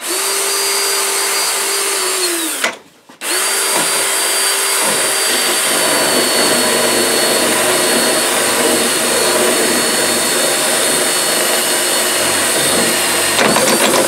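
Power drill boring a large hole through PVC pipe with a Forstner bit. The motor runs with a steady whine, stops briefly about three seconds in, then starts again and cuts into the plastic, stopping just before the end.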